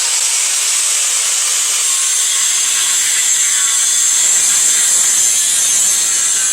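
Hitachi (Metabo HPT) angle grinder cutting through an exhaust pipe: a steady, loud, high-pitched grinding that holds without a break.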